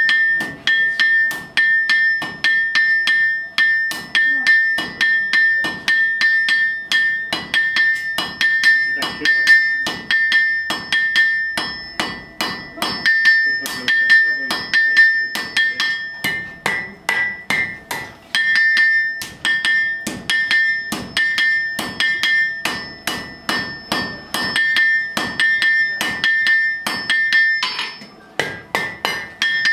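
Blacksmith's hand hammer striking hot iron on an anvil in a steady run of blows, about two to three a second, each leaving a clear high ring from the anvil, with a short break shortly before the end. The iron is being forged from a plain bar into a horseshoe.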